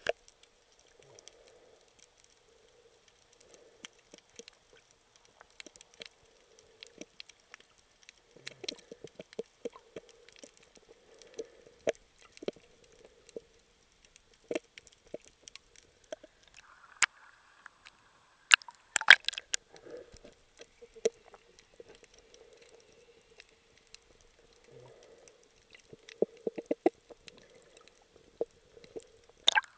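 Underwater sound heard through a submerged camera: scattered sharp clicks and ticks over a faint muffled murmur, with a quick run of louder clicks about two-thirds of the way through.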